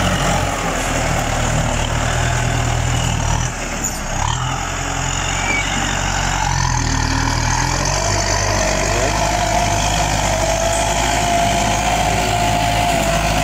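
Tractor engine running steadily while it pulls a disc plough through wet paddy soil. The sound dips briefly about three and a half seconds in, and the engine note shifts around eight seconds.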